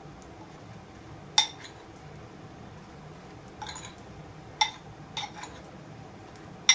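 Metal spoon clinking against a glass bowl while stirring spice-coated raw banana pieces: a few short clinks at irregular intervals, with the louder ones near the end.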